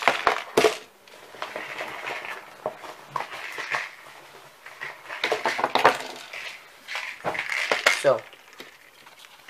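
Fishing tackle being set down and shuffled on a wooden desk: hard plastic tackle boxes and metal tools clattering and clinking in a string of short knocks and rattles.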